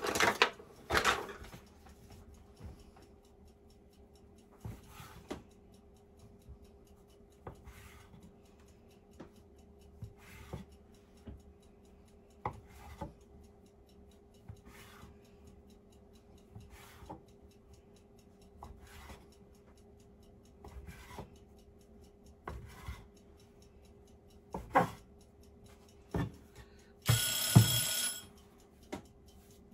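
Utensils clatter in a drawer, then a dough cutter chops through a log of dough onto a wooden cutting board, one knock every second or two. Near the end, a bell rings for about a second and a half, the loudest sound here.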